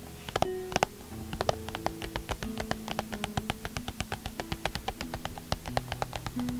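Fingertips tapping on the lid of a small cardboard box: a few separate taps at first, then a fast run of light taps, several a second. Soft background music plays underneath.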